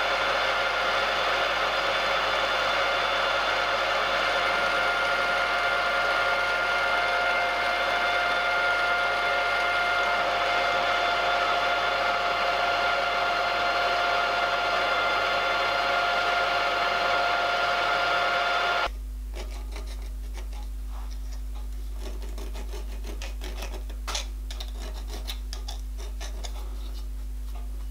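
Milling machine running steadily with a whine while a 2.5 mm end mill cuts a 1.5 mm-deep slot in a small metal bracket. About 19 seconds in the machine sound cuts off abruptly, leaving a low hum with a few light ticks and scrapes as a file is worked on the part.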